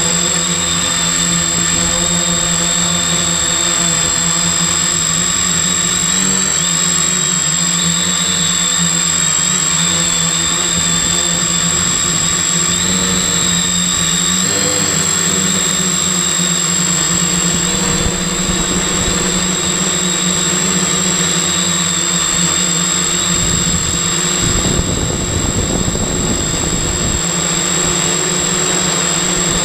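Brushless motors and propellers of a multirotor drone in flight, heard up close from its frame: a steady buzz with a constant high whine, its pitch shifting slightly now and then, and a few seconds of low rumble near the end.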